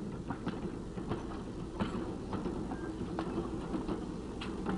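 Railroad freight cars rolling along the track: a low, steady rumble with irregular sharp clicks and knocks from the wheels.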